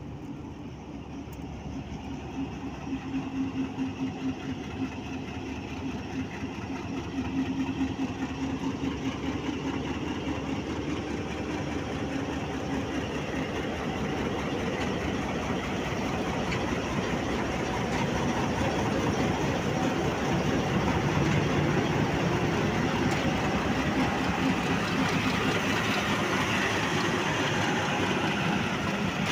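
Pakistan Railways HBU-20 diesel locomotive running slowly past at close range, its engine humming steadily. The sound grows into a louder rumble of diesel engines and rolling train wheels from about halfway through as a train passes close by.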